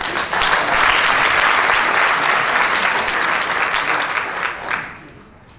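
Audience applauding: a burst of clapping that holds steady for about four seconds, then dies away near the end.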